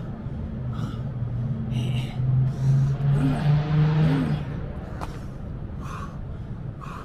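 A motor vehicle passes by, its low engine hum growing louder and peaking in the middle, then fading about four and a half seconds in. Short, hard breaths from a person doing burpees come at intervals of about a second.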